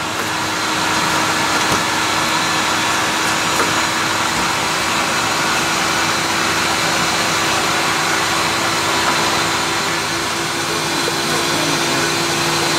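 Steady fan noise of kitchen ventilation, an even rushing sound with a low steady hum under it, growing slightly louder about half a second in.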